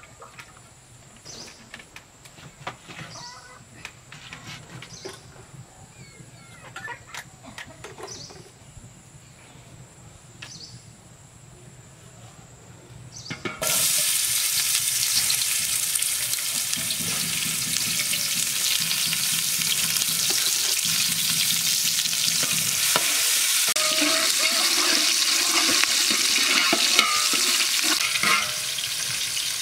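Chopped onion and green chilli tipped into hot oil in a pot, setting off a sudden loud sizzle about halfway through. The sizzle carries on steadily while a spatula stirs the pot. Before it there are only faint scattered ticks.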